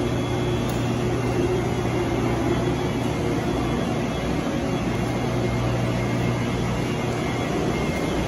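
Steady hum and whir of a stationary 413 series electric train's equipment, running while the train waits with its doors open.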